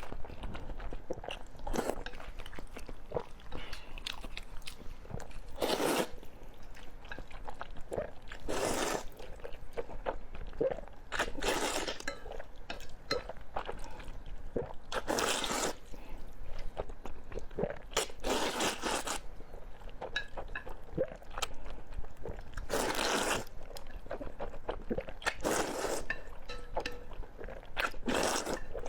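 A person chewing and crunching food close to the microphone. Louder crunchy bites come about every three seconds, with softer chewing clicks between them.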